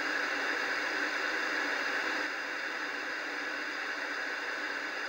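Analog television static: the steady hiss of an old CRT set showing snow, tuned to no station, getting slightly quieter about two seconds in.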